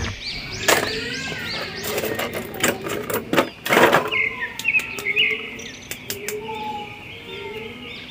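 Birds chirping in the background, with sharp clicks and crackles of a thin plastic blister tray as an action figure is handled over it. The clicks come thickest in the first few seconds.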